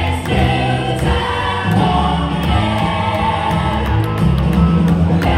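Music with singing, played over a loudspeaker system.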